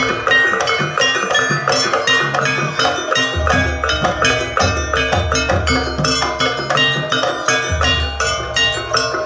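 Javanese gamelan music accompanying a jaranan dance: metal gong-chimes and metallophones strike quick runs of bell-like notes over repeated low drum strokes.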